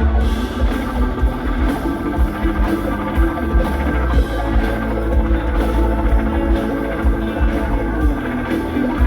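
Live rock band playing: drum kit and electric guitar over a strong bass line.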